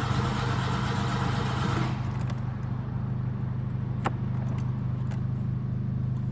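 1992 VW Voyage 1.8 four-cylinder engine running steadily after a hard start, with a louder rush of noise for the first two seconds that then drops away. A single sharp click comes about four seconds in.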